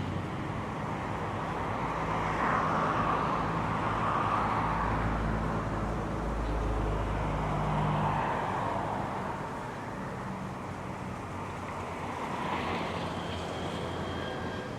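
Road traffic: motor vehicles passing by one after another, over a steady low engine hum.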